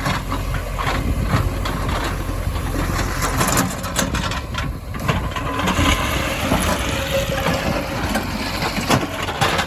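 Heavy diesel machinery running steadily, with stones knocking and clattering at irregular moments.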